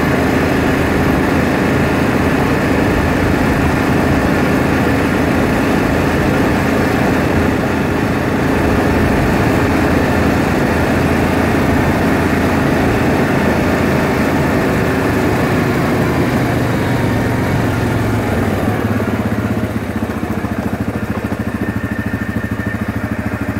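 ATV engine running steadily while riding. It gets quieter and lower near the end.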